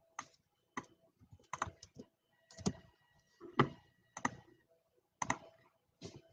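About a dozen light, irregular clicks and taps, unevenly spaced.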